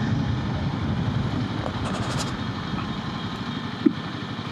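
Royal Enfield Himalayan 450's liquid-cooled single-cylinder engine idling with its radiator cooling fan running, a steady rumble. A brief sharp blip sounds near the end.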